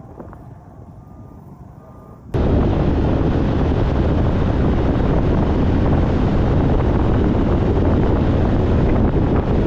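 Heavy wind buffeting on the microphone: a loud, steady rumbling roar that starts abruptly about two seconds in. Before it, a faint repeated beeping, typical of a vehicle's reversing alarm.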